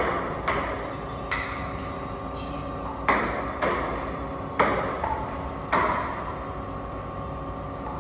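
A series of struck, ringing tones, one every half second to second and a half, each fading slowly over a steady held ring.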